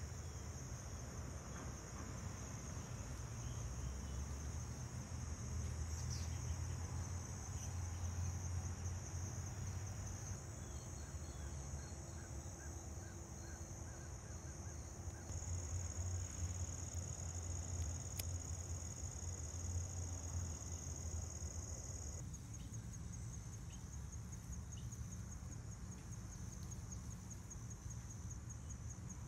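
Steady high-pitched chorus of insects buzzing continuously, its level stepping up and down a few times, over a low rumble.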